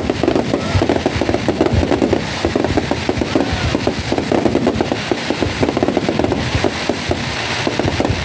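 Aerial fireworks display going off in a dense, rapid barrage of bangs and crackles, many shots a second.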